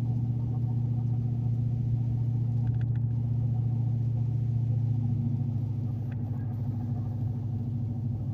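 Pickup truck running, heard from inside the cab while driving: a steady low drone of engine and road noise, with a couple of faint clicks.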